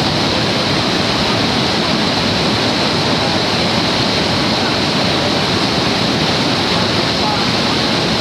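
Steady, loud rush of white water in the Niagara River's rapids and falls.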